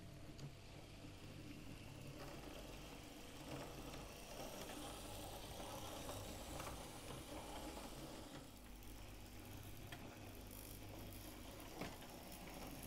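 OO gauge model locomotive running slowly, its small electric motor whirring steadily and its wheels rattling over the track, with a few clicks.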